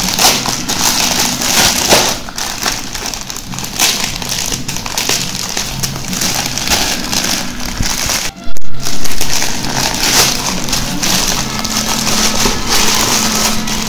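Plastic courier mailer crinkled and torn open by hand: continuous crackling and crumpling of the plastic, with one very loud, brief burst a little past the middle.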